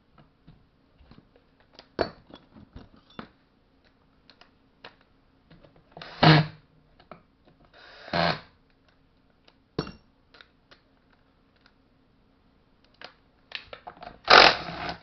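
Hand tools and small chainsaw parts clicking and knocking during reassembly of a Stihl MS-180 chainsaw, with a few louder, longer handling noises about six, eight and fourteen seconds in.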